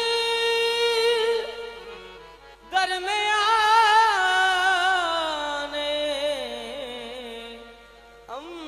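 Qawwali singing with harmonium accompaniment. A singer holds a long note that fades, then about three seconds in a new drawn-out, wavering phrase begins and slowly falls in pitch, dying away before the next line starts near the end.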